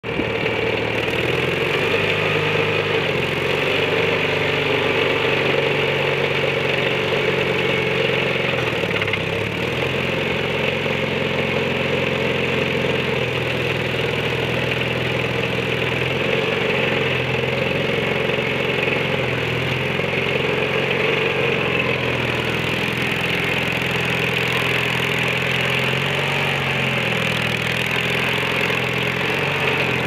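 Case 1816 skid steer loader's engine running steadily while the machine drives about and works its loader bucket. The engine pitch dips briefly about nine seconds in, then rises and shifts a little through the rest.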